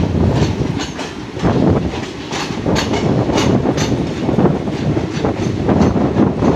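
ICF passenger coaches rolling along the track, heard at an open coach door: a steady rumble with the wheels clicking over rail joints roughly twice a second.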